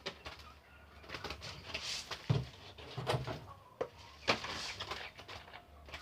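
Caged birds calling, broken by a series of sharp clicks and knocks from the cage being handled.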